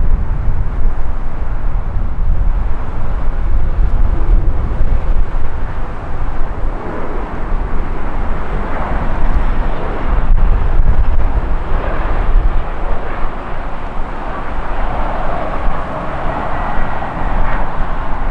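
Bombardier CRJ700-series regional jet on final approach with its landing gear down: steady jet engine noise over a deep rumble, with a whine growing stronger in the last few seconds as the jet comes closer.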